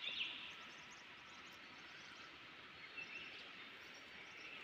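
Faint jungle ambience: a steady high hiss with a few short bird chirps just after the start and again about three seconds in.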